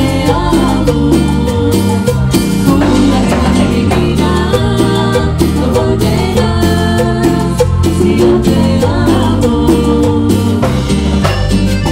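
Live cumbia sonidera band playing: a synthesizer keyboard carries the melody over bass and drums, with singing.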